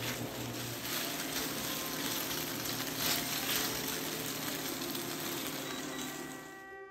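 Chicken pieces sizzling in teriyaki sauce in a hot stainless steel sauté pan while being stirred with wooden chopsticks; the sizzle dies away near the end as the pan comes off the induction cooktop.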